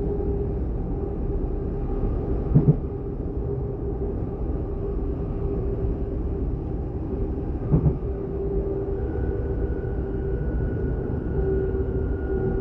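DB class 422 electric multiple unit running, heard from inside: a steady low rumble with a steady whine from the electric traction drive. About two and a half seconds in and again about eight seconds in come short double thumps of wheels passing over rail joints.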